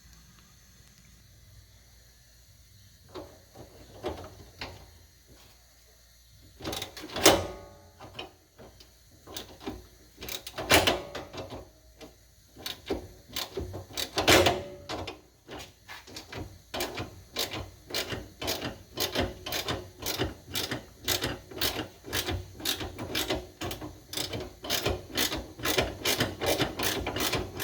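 A ratcheting hand tool clicking as the hood-latch screws are backed out. A few scattered clicks and two louder knocks come first, then a steady run of about two to three clicks a second through the second half.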